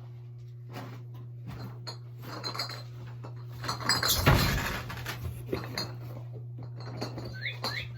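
Household clatter of dishes, glass and cutlery being handled, with the loudest clatter about four seconds in, over a steady low electrical hum. Near the end, a series of quick chirping calls begins.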